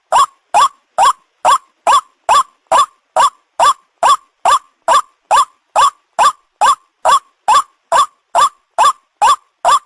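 White-breasted waterhen (ruak-ruak) call repeated in a fast, perfectly even series, about two short notes a second, each bending upward in pitch. It is a bird-lure call played on a loop.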